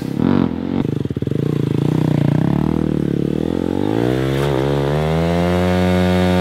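Single-cylinder KTM Duke stunt motorcycle engine running under throttle, its note climbing from about three seconds in and then holding steady, as when the bike is ridden round in a circle.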